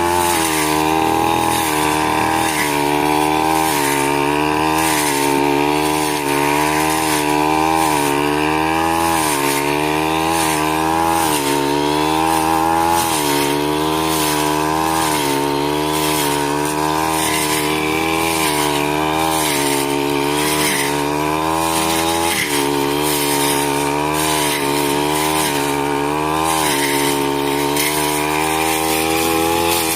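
Grass cutter's small petrol engine running for the whole stretch, its speed wavering up and down every second or two rather than holding steady. The uneven running goes with the engine trouble the operator has just spoken of.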